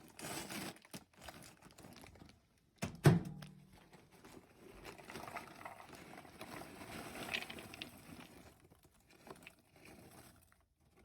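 Popped popcorn poured from a paper microwave bag into a bowl, rustling and pattering for several seconds. There is a single knock about three seconds in.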